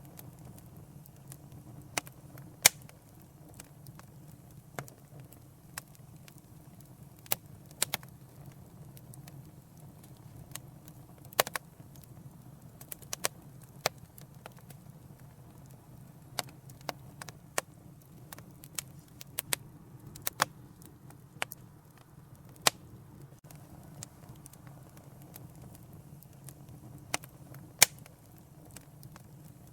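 Wood fire burning in a fireplace with a low steady rumble, crackling and popping at irregular intervals, a few pops much louder than the rest.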